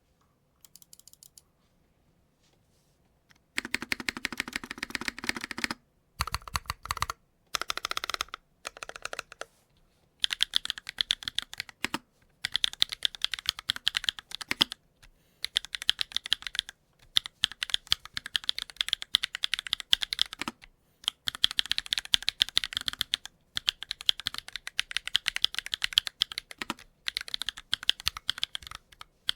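Typing on a DNworks SBL mechanical keyboard with HMX/yowzers Firecracker switches and GMK Earth Tones keycaps. A few faint keystrokes come first, then fast runs of keystrokes from about three seconds in, broken by short pauses.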